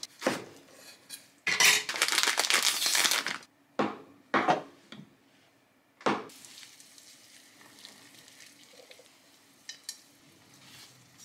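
A kitchen cleaver chops through enoki mushrooms and a block of tofu, striking a wooden cutting board in a few sharp knocks, with a rustling stretch of about two seconds early on. From about six seconds in it goes quiet apart from a few light clicks as chopsticks place ingredients into a ceramic hot-pot dish.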